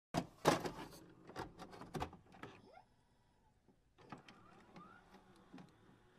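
Irregular light taps and clicks of small objects being set down on a hard tabletop, in a quick cluster, a brief pause about three seconds in, then a few sparser taps.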